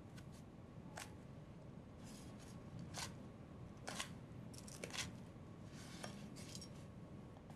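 A chef's knife chopping crispy country ham on a wooden cutting board: faint, crisp cuts and knocks of the blade on the board, roughly one a second.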